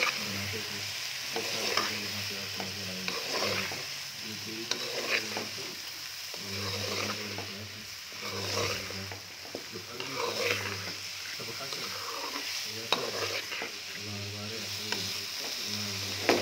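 A metal slotted spoon stirring and scraping through potatoes, chicken and beans in an aluminium pot, with repeated scraping strokes every second or two over a steady frying sizzle. A low hum comes and goes underneath.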